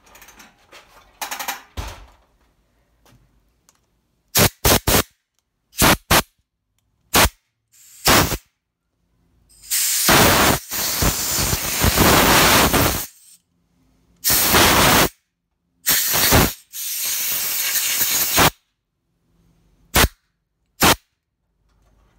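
Compressed-air blow gun blasting air through a Honda lawnmower carburetor to blow out its passages: a string of short sharp hisses, then two longer blasts of about three and two seconds, and two more short bursts near the end.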